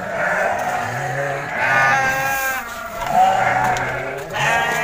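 Sheep bleating: a few long calls, one after another.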